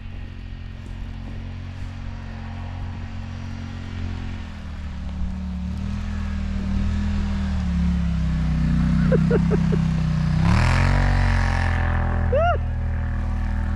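A motor vehicle's engine draws closer and gets louder, its pitch rising and falling as the throttle changes. Short high calls from people cut through about two-thirds of the way in and again near the end.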